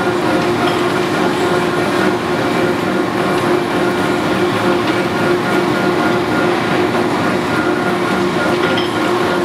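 1973 Lodge & Shipley 2516 hollow-spindle lathe running: a steady gear whine over a mechanical rumble.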